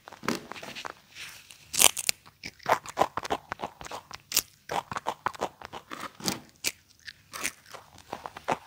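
A baby monkey crunching and chewing crisp puffed snacks, close to the microphone: a quick, irregular run of sharp crunches, the loudest about two seconds in.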